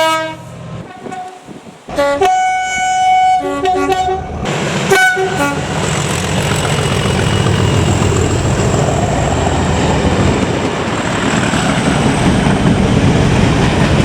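Train horn sounding a chord of several notes at once: one blast about two seconds in, then short toots around four and five seconds. After that comes a steady rumbling noise of the train.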